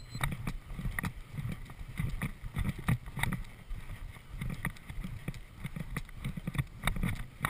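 Hoofbeats of a horse cantering on grass, a steady rhythm of thuds with wind rumbling on the microphone.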